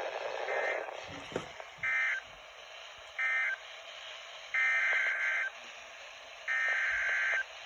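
Emergency Alert System SAME data bursts on a NOAA weather radio broadcast, each a harsh two-tone digital screech that starts and stops abruptly, over steady radio hiss. Three short bursts about a second and a half apart mark the end of one warning message, then two longer bursts about a second each begin the header of the next warning.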